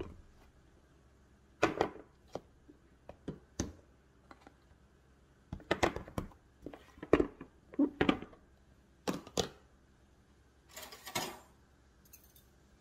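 Plastic and glass food-storage containers being handled on a kitchen countertop: a series of knocks and clicks as they are set down and the glass container's snap-lock lid latches are unclipped, then a short scraping rustle as the lid comes off.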